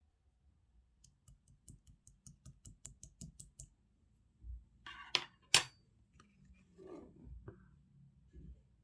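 Slime being handled for mixing: a run of small, evenly spaced clicks, about four a second, then two sharp, loud snaps a little past the middle, followed by softer squishing.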